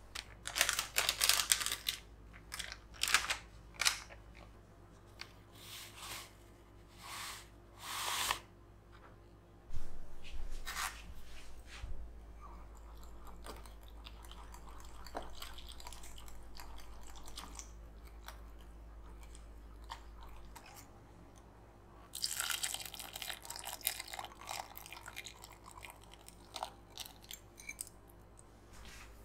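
Kitchen prep at a glass mixing bowl: a spoon scraping and clicking against the glass while coconut milk powder is stirred, in a run of sharp clicks and scrapes. The handling goes quieter in the middle, then about twenty-two seconds in there are a few seconds of dense scraping as the mixture is worked.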